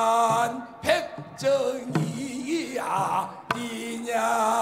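A man singing pansori into a microphone with no accompaniment: long, drawn-out notes with a wavering vibrato, broken by short breaths, the last held for nearly a second near the end.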